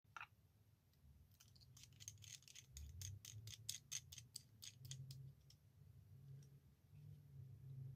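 Faint, rapid light clicks and ticks from a fountain pen being turned and fiddled with in the fingers, about four to six a second for a few seconds, then a few scattered clicks, over a low steady hum.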